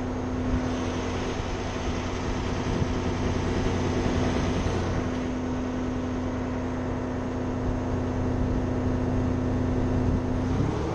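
Wirtgen asphalt milling machine at work: its diesel engine drones steadily under the dense rushing noise of the cutting drum milling asphalt. The engine note rises slightly near the end.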